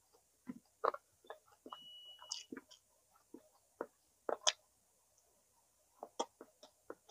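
Close-miked chewing of smoked chicken: scattered wet mouth clicks and smacks with short pauses between them.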